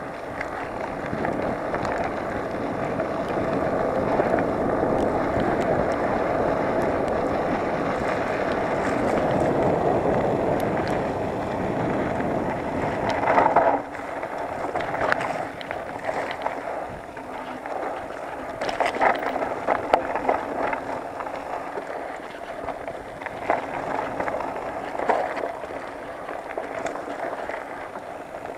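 Mountain bike descending a dirt trail: a steady rush of wind on the microphone with tyre noise, then about halfway through it drops in level and the bike clatters with frequent clicks and knocks over the rougher, narrower singletrack.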